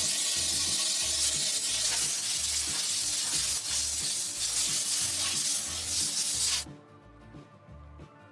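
Compressed air blasting from a blow gun into an RV water heater's burner tube: a loud, steady hiss that cuts off suddenly near the end. Background music with a steady low beat runs underneath.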